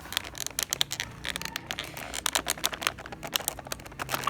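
Stiff plastic packaging crinkling and clicking in irregular quick ticks as a small toy figure is pried out of it by hand.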